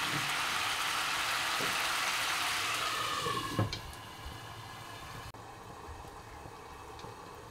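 Spiny gourd curry sizzling in an open nonstick kadai, then a knock about three and a half seconds in as a glass lid is set on the pan. After that the simmering goes on, fainter and muffled under the lid.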